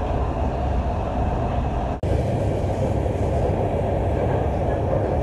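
Steady rumble and running noise of a Lahore Orange Line metro train, heard from inside the carriage as it travels between stations. The sound drops out for an instant about two seconds in.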